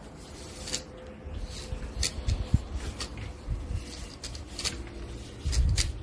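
Handling noise from a telescoping selfie-stick tripod being held and adjusted: low rubbing and knocking with several sharp plastic clicks, heaviest near the end.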